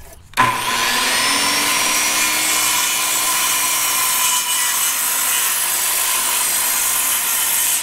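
Handheld circular saw starting about half a second in, its whine rising quickly to a steady pitch as it cuts a 45-degree angle across the end of a 2x3 board, running steadily for about seven seconds.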